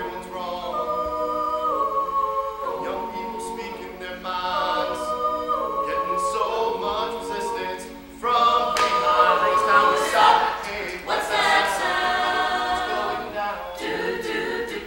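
A cappella vocal group singing in harmony, a male lead voice over sung backing chords, growing suddenly louder about eight seconds in.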